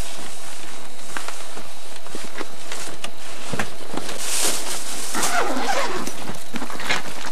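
Scattered knocks, clicks and rustling of people moving about and settling inside a car, with a brief falling tone about five seconds in.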